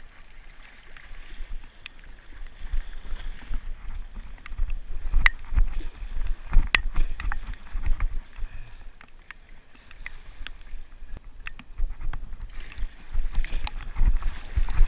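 Water sloshing and splashing around a sea kayak on choppy water, with wind buffeting the microphone and a few sharp ticks of water hitting the camera. It grows louder near the end as the paddle strokes through the water.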